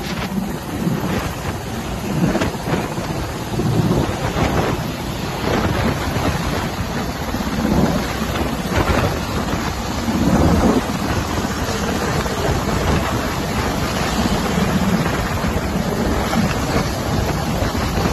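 Hovering helicopter's rotor downwash buffeting the microphone: a loud, rough rushing and rumbling wind noise that swells and eases.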